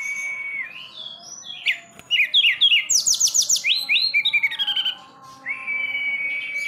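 Caged tledekan gunung singing. It opens with a long level whistle, breaks into a fast varied run of chirps, trills and steep rising notes, and near the end holds another long level whistle.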